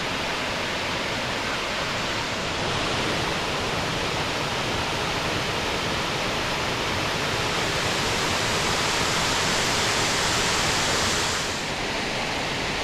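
Steady rush of falling water from the McCloud River's Middle Falls, a large waterfall pouring into a pool; the sound turns slightly duller near the end.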